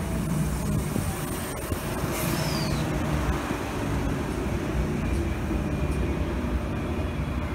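Transperth A-series electric multiple-unit train running along the platform: a steady rumble of wheels on rail with a faint whine over it.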